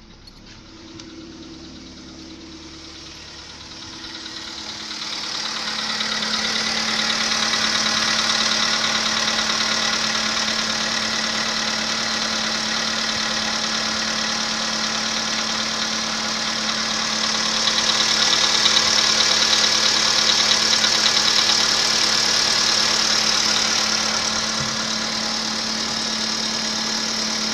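Volkswagen Polo Sedan's 1.6-litre 85 hp petrol engine idling just after a cold start, with a rapid knocking that sets in and grows loud about five seconds in. It is the cold-start engine knock this car developed at 14,000 km.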